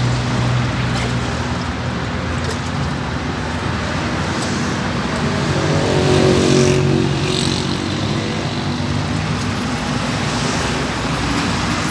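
Steady street traffic with a low hum, and a vehicle passing louder about five to seven seconds in.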